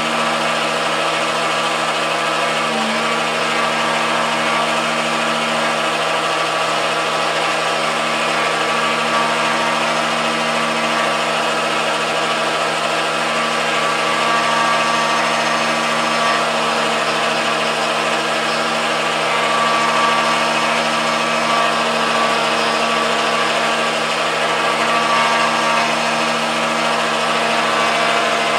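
Motor-driven MDF rose engine lathe running steadily through a cut, a continuous machine hum with several steady tones.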